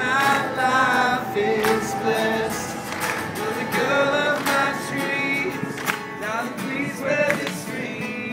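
Acoustic guitar strummed with a male voice singing, a live solo acoustic song performance.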